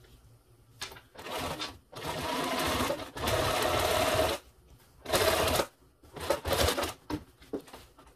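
Sewing machine running in short runs, starting and stopping several times, stitching a zipper onto leatherette.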